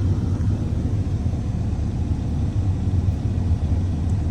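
Steady low rumble with no distinct knocks or clicks.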